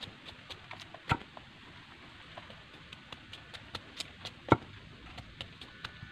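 Bolo knife blade cutting and shaving the sheath off a bamboo shoot: a run of small, quick clicks from the blade, with two louder chops, one about a second in and one past the middle.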